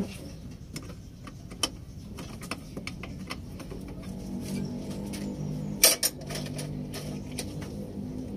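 Scattered metallic clicks and clinks of hand work on a truck's battery wiring, with one loud clank about six seconds in. A low steady hum comes in about four seconds in.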